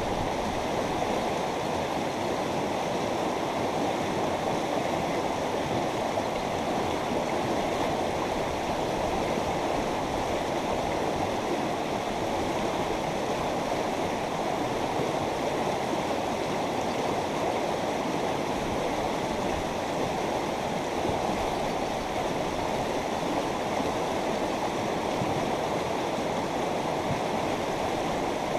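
A mountain river flowing over rocks: a steady, even rushing of water with no breaks.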